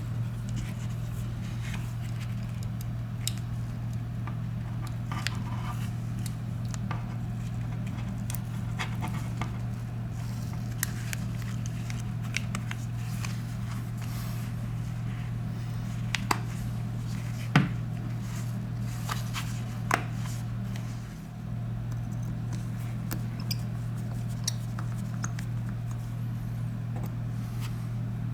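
Steady low hum with scattered small clicks and taps from handling small phone parts and tools, the sharpest tap about seventeen seconds in.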